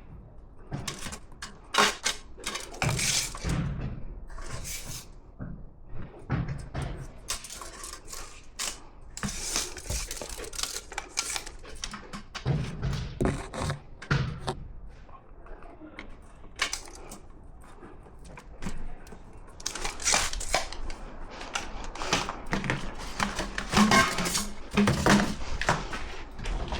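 Hand work: irregular knocks, clicks and clatter of tools and parts being handled and set down, in bursts with brief lulls, with no power tool running.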